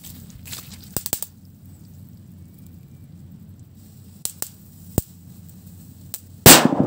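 Homemade firecracker exploding with one very loud, sharp bang near the end, its echo trailing off. A few faint clicks come before it.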